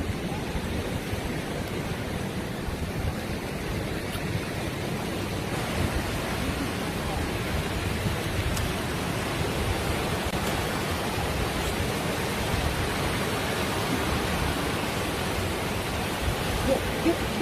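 Steady rushing noise outdoors, with no clear pitch, getting a little louder about five seconds in.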